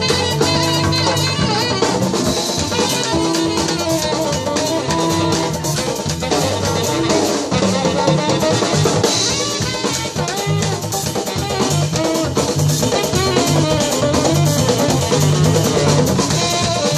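Live jazz band with drum kit and piano playing a steady, dense groove, joined by three Uruguayan candombe drums (chico, repique and piano) struck by hand and stick.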